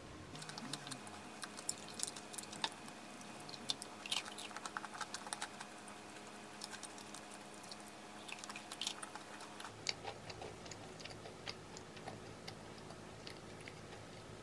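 Faint close-miked eating sounds: biting into and chewing a soft chocolate-chip financier, heard as scattered small wet mouth clicks and crackles that thin out after about ten seconds.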